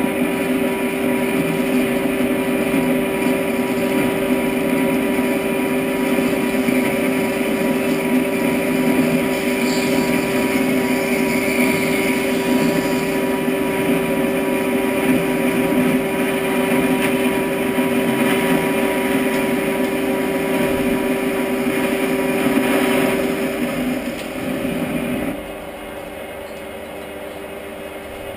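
Geared metal lathe running steadily while a boring bar cuts the inside of a part in the chuck, with a steady gear whine. Near the end the sound drops in two steps to a quieter hum.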